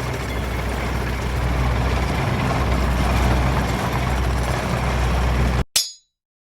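A heavy engine running steadily with a low drone, cutting off suddenly near the end with a short click.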